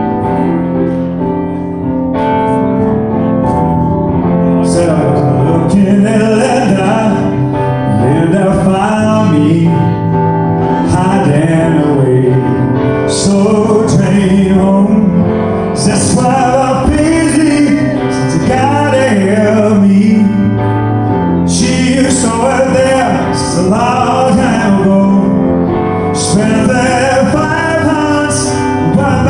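Male lead vocalist singing a slow pop song live, accompanied by keyboard chords, with the voice coming in a few seconds in over the sustained keyboard.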